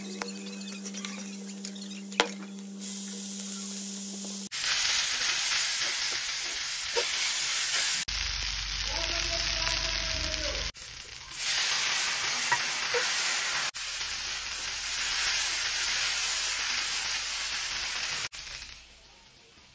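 Stir-frying in a wok: oil sizzling under noodles and meat as a wooden spatula turns them, with an occasional knock of the spatula against the pan. The sizzle breaks off and resumes abruptly several times, and a steady hum sits under it for the first few seconds.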